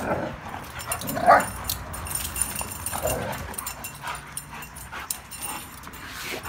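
Two dogs, a pitbull and a German shepherd puppy, giving a few short barks during rough play over a toy; the loudest is about a second in.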